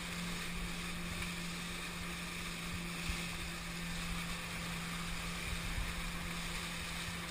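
Jet ski engine running steadily at speed, an even drone, with wind buffeting the microphone and water rushing past the hull.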